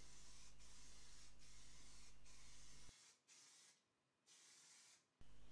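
Faint hiss of an aerosol can spraying zinc primer, over a low steady hum. About three seconds in it all drops away to near silence.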